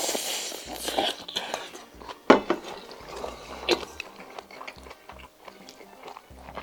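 A person eating close to the microphone: chewing and biting on stir-fried octopus with rice, with a few sharp clicks among the mouth sounds, the loudest about two seconds in.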